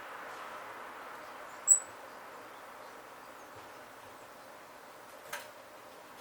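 A wild bird gives a single short, high chirp about two seconds in, over a steady background hiss; a faint click comes near the end.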